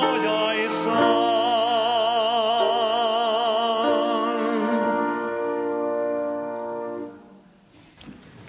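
A man singing the closing note of a song with wide vibrato over grand piano accompaniment. The voice stops about four seconds in, and the piano's final chord rings on and dies away by about seven seconds.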